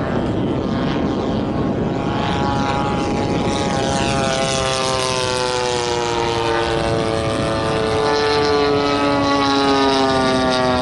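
Radio-controlled model warplane's engine and propeller droning overhead, the tone coming clear about two seconds in and then slowly falling in pitch as the plane passes.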